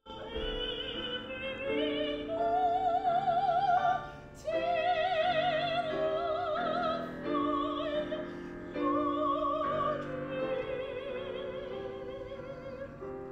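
Operatic soprano singing a song with strong vibrato over piano accompaniment, breaking off briefly for breath about four seconds in.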